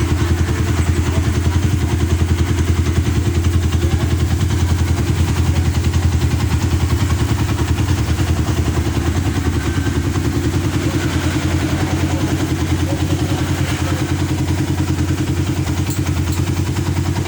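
Suzuki Satria FU 150's single-cylinder four-stroke engine idling steadily with a fast, even exhaust beat. The engine has a replaced cylinder and cylinder head set with stock-level porting.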